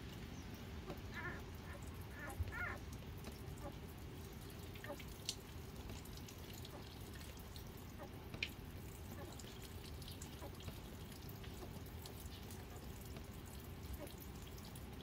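Newborn Jindo puppies suckling from their mother: faint, scattered wet clicks and smacks, with a few soft squeaks in the first few seconds, over a low steady hum.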